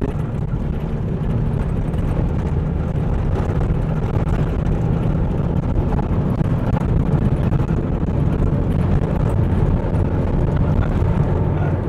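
Engine and road noise inside the cabin of an old taxi being driven fast, a steady low rumble.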